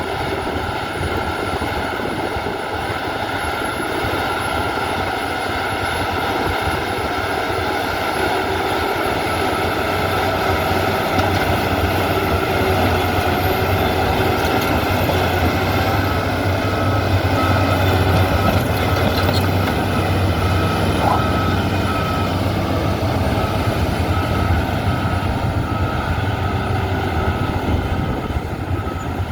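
Bulldozer's diesel engine running steadily under load, its hum swelling slightly mid-way. A faint, regular beeping joins in about halfway through.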